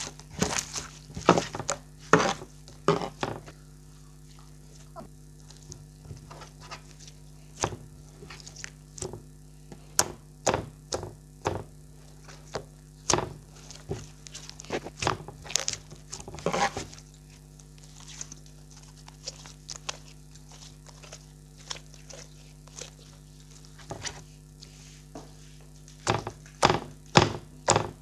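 Clear slime being squeezed and folded by hand, giving irregular wet clicks and pops, some in quick clusters, over a steady low hum.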